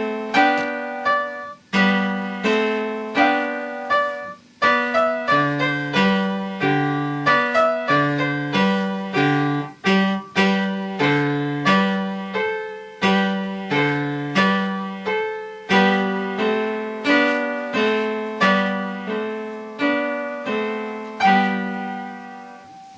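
Solo piano played by a young child: a simple melody over single low bass notes, each note struck in an even, unhurried pulse. The last notes are left to ring and fade away near the end.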